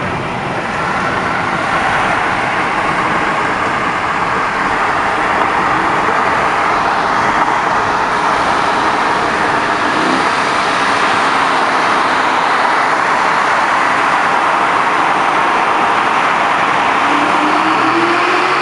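Aston Martin V8 Vantage's V8 engine running through a tunnel, a steady loud rush of engine and road noise echoing off the walls, with the engine note climbing near the end as the car accelerates.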